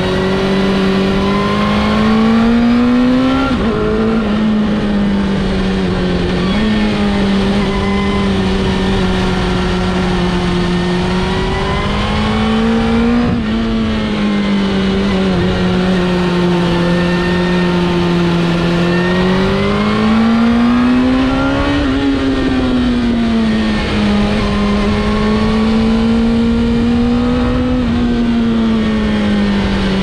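Suzuki GSX-R 1000's inline-four engine running under way, its note rising and falling gently several times as the throttle is opened and eased through a run of bends.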